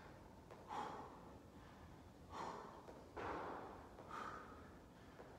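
A person breathing hard from exertion during a set of single-arm weight rows: about four faint, rushing breaths in and out, a second or so apart.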